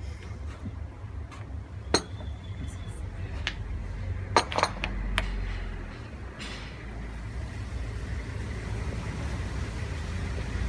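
Scattered sharp clinks of café tableware, one about two seconds in and a quick cluster a little past four seconds, over a low steady rumble.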